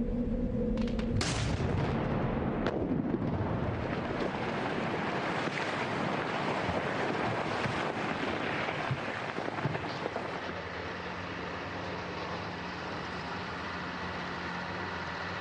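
Rock blasting in an open-pit quartz quarry: a sharp crack about a second in and another a second and a half later, followed by a long rumble of rock and debris that slowly dies away. From about ten seconds in, heavy quarry machinery drones steadily.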